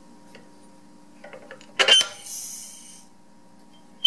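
A powder measure thrown with a few light clicks and then a sharp clack, followed by about a second of hissing as a charge of smokeless powder pours through the transfer device's baffles into the brass pan on the scale.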